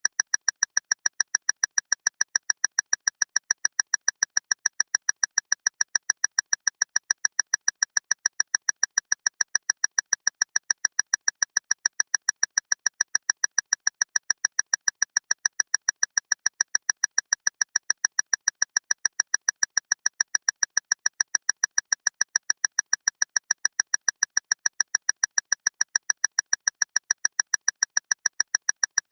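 Clock ticking loudly and fast, with a steady run of sharp, identical ticks, several a second.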